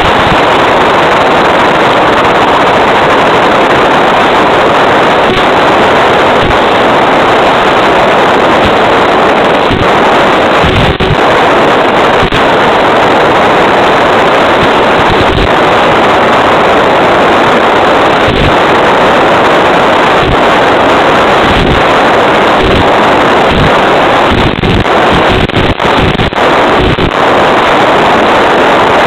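Loud steady hiss on the audio of an FPV plane's onboard video link, with no motor tone while it glides with the throttle off. Short crackles and dropouts come through a couple of times, near the middle and near the end.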